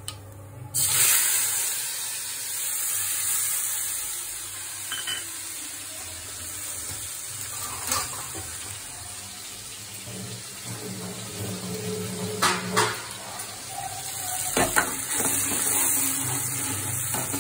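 Masala paste hitting hot oil and cumin seeds in a kadhai: a loud sizzle starts suddenly about a second in and keeps going as the paste fries. A metal ladle stirs and scrapes through it, with a few sharp clinks against the pan.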